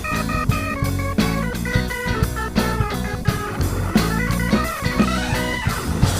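Rock music with an electric guitar playing quick runs of notes over bass and drums.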